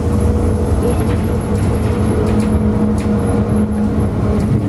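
Running noise of a city bus heard from inside the cabin as it drives: a steady engine drone and road rumble, with a few light rattles.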